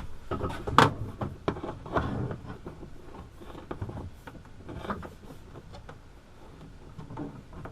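Handling noises: a few scattered knocks and rustling scrapes as an air conditioner's power cord and plug are worked down through a hole drilled in a wooden countertop, the strongest knocks about one and two seconds in.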